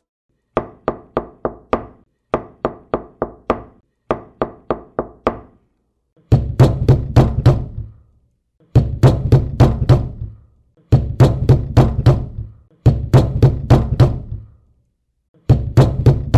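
Knocking on a hard surface in quick runs of about four to six knocks, each run separated by a short pause. The first three runs are lighter; from about six seconds in, the knocks become heavier and deeper, like pounding.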